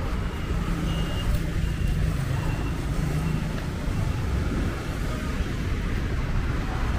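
Town street traffic: vehicle engines running and passing, over a steady low rumble, with a few faint short high tones.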